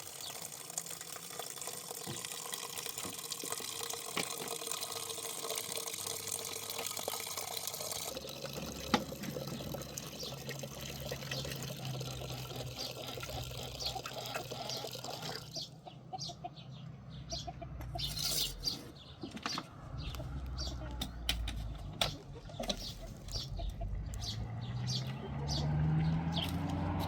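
Running water, a steady splashing hiss that changes character twice, with a low hum and then a series of short knocks in the second half.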